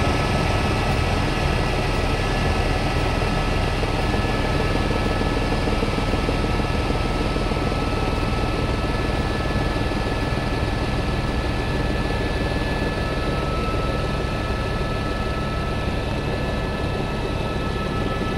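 Steady in-flight noise heard from inside an aircraft cabin: a constant engine and airflow rush with a few steady high whining tones, easing slightly in level toward the end.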